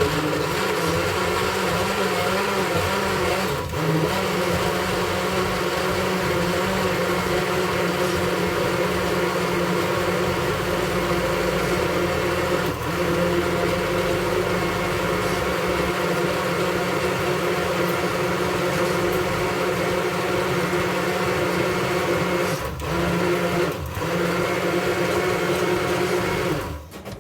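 Countertop blender motor running steadily, blending food with a little water, with a few brief dips in level, then switched off near the end.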